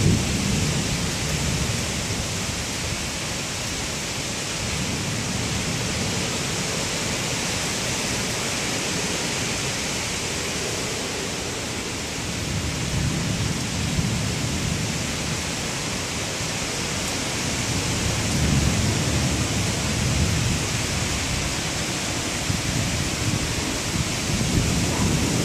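Thunderstorm outdoors: a steady hiss of rain and wind, with low rumbling swells that rise and fall, loudest around the middle of the stretch.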